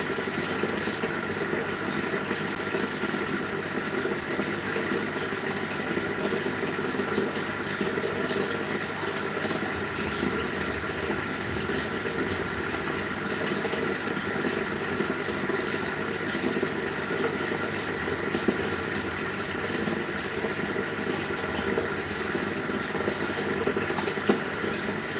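Aquarium aeration bubbling steadily: a constant rush of air bubbles streaming up through the tank water, over a steady hum, with a few brief ticks.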